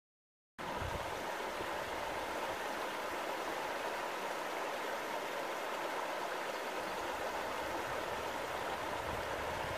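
Mountain valley stream flowing: a steady rush of running water that starts abruptly about half a second in.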